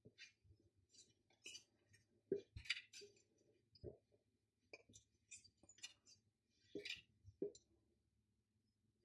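Tarot cards being handled: faint, scattered clicks and brief soft slides as the cards are moved on the deck one at a time.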